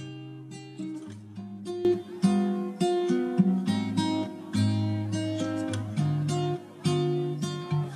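Background music of plucked string chords, sounding like an acoustic guitar, struck one after another with each chord fading away.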